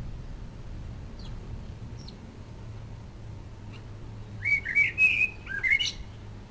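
A bird chirping: a couple of faint short chirps, then a quick run of bright warbling notes about four and a half seconds in that lasts a second and a half, over a low steady hum.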